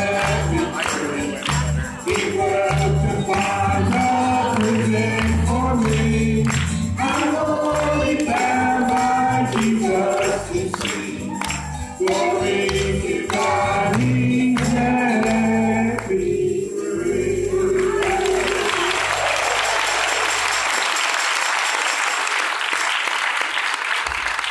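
A man and a young girl sing a gospel song as a duet with acoustic guitar, closing on a held final note about seventeen seconds in. The congregation then applauds.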